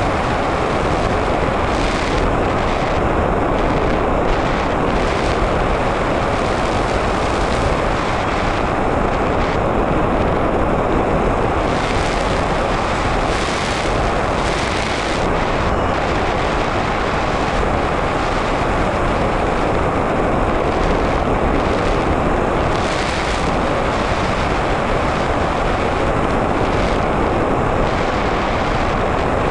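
Steady rush of airflow over the onboard camera of an Easy Star 2 RC model plane in flight, with a few brief hissier surges now and then.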